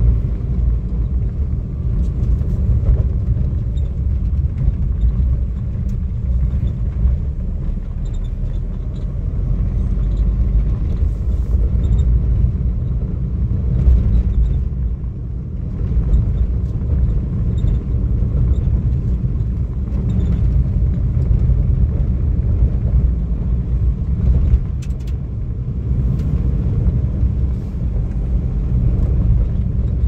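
Steady low rumble of a car driving on a rough asphalt road, heard from inside the cabin: engine and tyre noise, with a few faint clicks.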